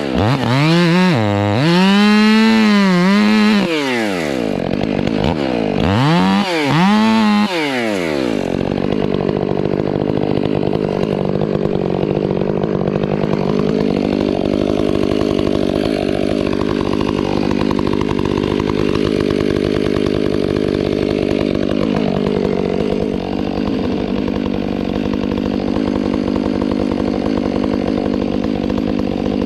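Two-stroke chainsaw revved up and down several times, then held at steady full throttle from about eight seconds in, cutting wood.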